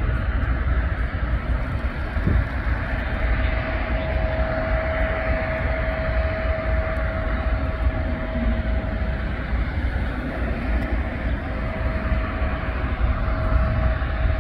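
Jet engines of airliners taxiing at low power: a steady rumble and hiss with a thin whine held on one note.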